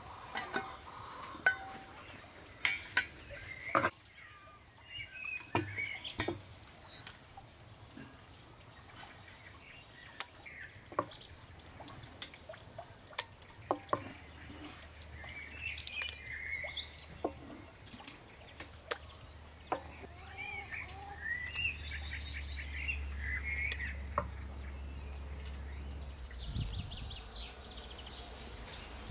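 Wooden spoon knocking and scraping as fresh butter is scooped out of a wooden butter churn into a steel pot, a string of sharp clicks and knocks. Birds chirp now and then in the background.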